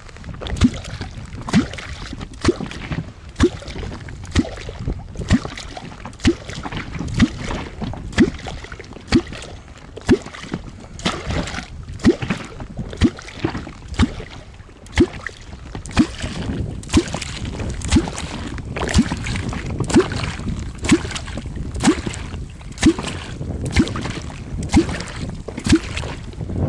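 A catfish kvok struck into the water over and over, about once a second, each stroke giving a short, low-pitched plop. It is calling catfish up from the depths to the bait.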